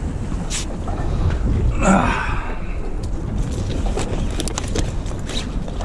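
Wind rumbling on the microphone aboard a small boat, with scattered clicks and knocks as a cloth bag is handled on the deck. A brief louder sound rises about two seconds in.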